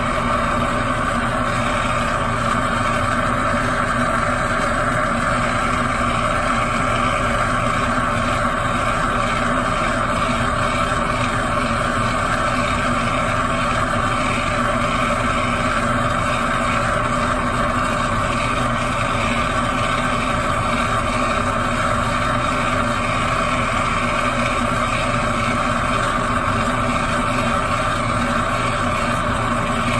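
Large gas torch flame burning steadily into a hooded ceramic crucible, preheating it before the silver is added. The rushing noise holds at one even level throughout.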